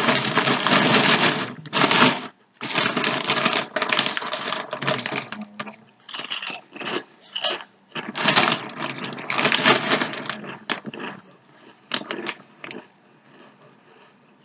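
A crinkly SunChips bag being handled: loud, irregular crackling in bursts of a second or two, dying down to a few short crackles near the end.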